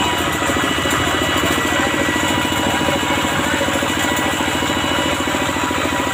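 Two-wheel hand tractor's single-cylinder diesel engine running steadily as the tractor drives along, with a fast, even pulse of firing strokes.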